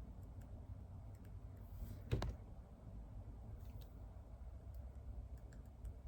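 Quiet desk-work sounds: a few faint scattered clicks and taps over a low steady hum, with one sharp, louder knock about two seconds in.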